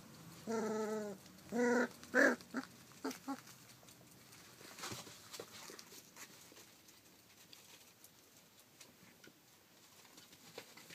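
Rough collie puppies about five weeks old yelping and whining as they play-wrestle: several short, high cries in the first three seconds or so, the loudest around two seconds in. After that only faint light ticks and scrabbling.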